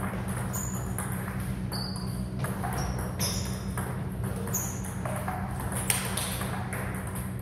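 Table tennis rally: the celluloid ball striking table and bats in short high pings, about one a second, over a steady low hum.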